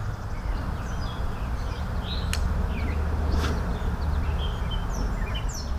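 Small birds chirping in short, scattered calls over a steady low rumble, with two sharp clicks a second apart near the middle.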